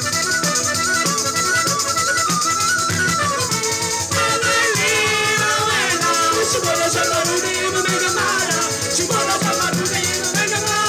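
Live Italian folk band playing: a frame drum keeps a dense, steady beat under strummed acoustic guitar, and a melody line slides and bends in pitch about halfway through.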